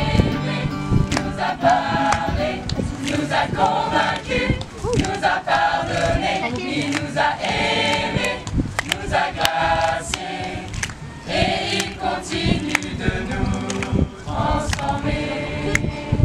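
A group of young people singing a song together in chorus, with sharp beats running under the voices.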